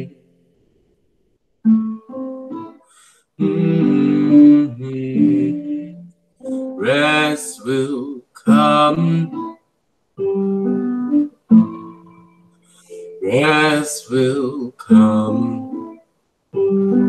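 A solo voice singing a slow lullaby, the held notes wavering with vibrato. Heard over a video call, the sound drops out to silence between phrases.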